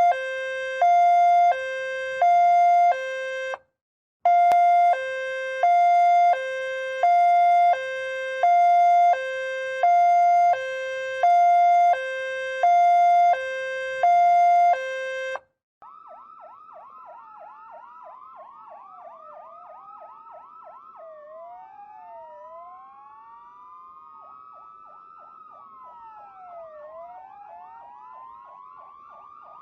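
Ambulance two-tone hi-lo siren switching back and forth between two pitches, about one switch every half second or so, with a brief break about four seconds in. About halfway through it cuts off, and a quieter electronic ambulance siren takes over with slow wailing sweeps and stretches of fast yelping, the sweeps overlapping as from more than one siren.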